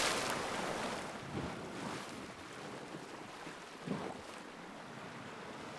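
Sea water washing gently against a rocky shore with some wind: a faint, steady wash with a few small brief swells.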